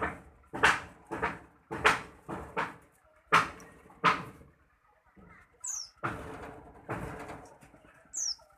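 Old, unmaintained grinding mill running, with a faint steady hum under uneven clunking knocks, about one or two a second, that turn into a rougher rattle in the second half, and two short high squeaks.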